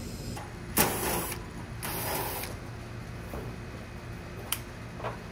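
Two short crunching scuffs, then two light metal clicks as the sheet-metal top panel of an outdoor AC condensing unit is lifted, over a steady low hum.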